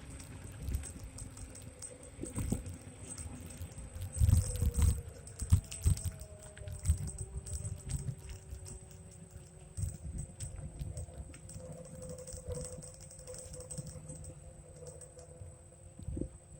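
Xiaomi M365 electric scooter riding along a rough road: a faint hub-motor whine that slowly drops in pitch, under a steady run of rapid clicks and rattles. Heavy low thumps of wind or bumps come in, loudest about four to five seconds in.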